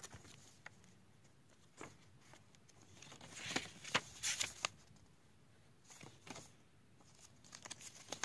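Paper rustling and page flicks as a CD album booklet is handled, opened and its pages turned. The rustles come in short bursts, loudest from about three to four and a half seconds in.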